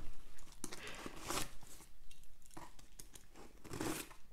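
Hands working at the packing tape on a cardboard box: scattered scratches, scrapes and short tearing sounds, with a longer rasp about a second and a half in and again near the end.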